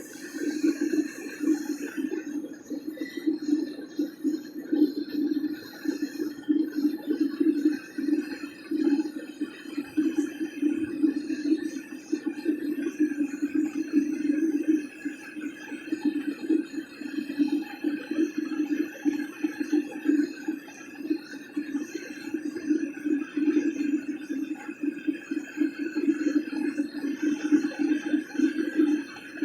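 Homemade aluminum-melting furnace firing: a steady rushing noise of fire and forced air that flickers rapidly in loudness.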